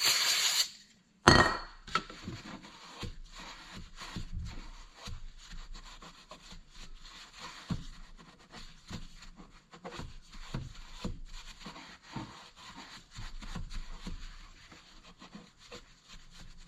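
A short hiss of carb cleaner sprayed from an aerosol can, stopping under a second in, then a knock and a long stretch of scrubbing and rubbing on a dirty plastic part, with small irregular knocks.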